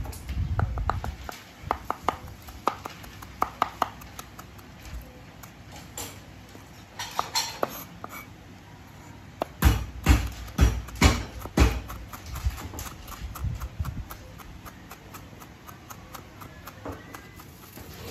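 Kitchen knife mincing lemongrass on a wooden cutting board: quick knocks of the blade on the board in several runs, the loudest about halfway through.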